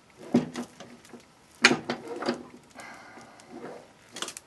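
Ratchet wrench and steel suspension parts of a 1974 Plymouth Duster's front end: a few separate sharp metal knocks and clinks, then a quick run of ratchet clicks near the end, as the steering arm is bolted onto the front spindle.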